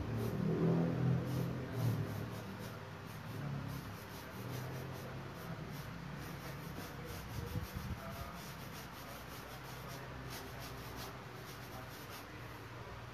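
Quick, repeated strokes of a drawing pen scratching and rubbing across a large canvas, over a low steady hum that is louder for the first two seconds.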